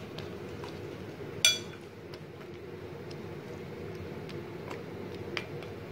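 Metal spoon clinking against a glass bowl while stirring fried lentil dumplings in yogurt: one sharp ringing clink about a second and a half in, a lighter one near the end, and a few faint taps between.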